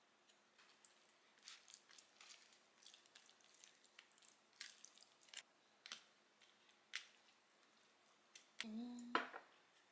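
Faint clicks and ticks of metal chopsticks against a plastic food tray and a foil cup, with soft squishing as raw beef is mixed with egg yolk. Near the end a brief low hum of a voice and one louder click.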